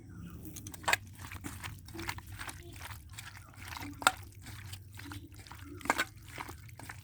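Raw chicken pieces being mixed with yogurt and spice paste in a bowl to marinate: wet squelching and irregular small clicks, with a few sharper knocks about a second in, around four seconds and around six seconds.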